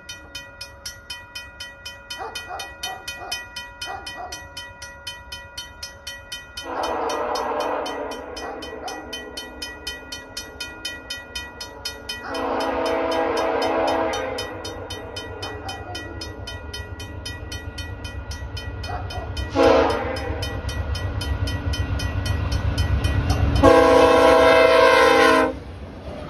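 VIA Rail P42DC diesel locomotive sounding its multi-note horn in the grade-crossing pattern, long, long, short, long, over the crossing bell ringing about twice a second. The low rumble of the train grows as it nears, and the last long blast cuts off as the locomotive reaches the crossing near the end.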